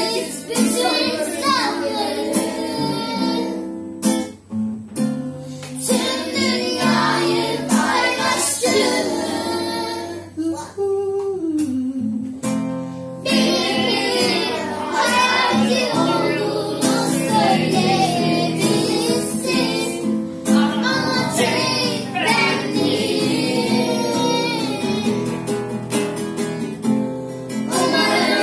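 Children singing a song together, accompanied by a strummed acoustic guitar.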